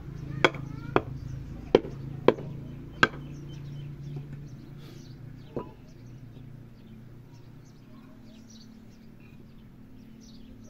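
Bricks being knocked down into place while laying a brick course on soil: five sharp knocks in the first three seconds, one softer knock about halfway, then no more.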